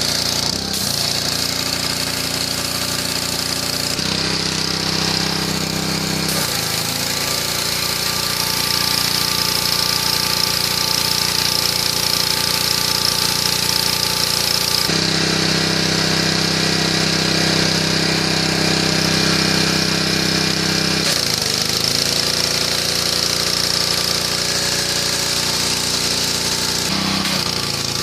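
Briggs & Stratton PowerBoss 8370CP gas pressure washer running, its small engine and pump going steadily with a high hiss over them. The engine note shifts several times, dipping briefly about 6 seconds in and again about 21 seconds in.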